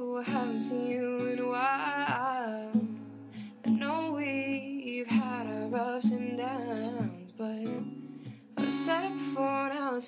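Background music: a song of strummed acoustic guitar with a gliding melody line over it.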